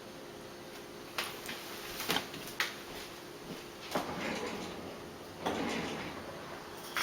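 Adhesive tape being peeled up from a laptop's LCD connector by hand: a few sharp clicks and scratchy rasps, the longest a drawn-out rasp about a second long near the middle.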